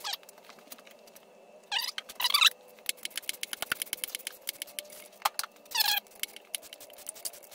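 Hand tools working metal on the front of an engine: a long run of quick, sharp clicks and clinks, with two brief louder bursts of tool noise about two seconds in and again near six seconds.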